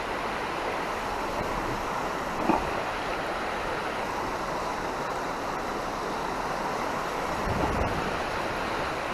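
Steady rush of flowing river water, with a single short knock about two and a half seconds in.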